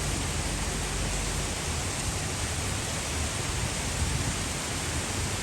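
Typhoon rain and wind: a steady, even hiss of heavy rain with an uneven low rumble beneath it.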